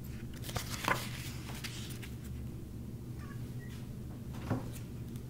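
A hardcover picture book being handled and its page turned: a few soft rustles and taps, the sharpest about a second in and another near the end, over a steady low room hum.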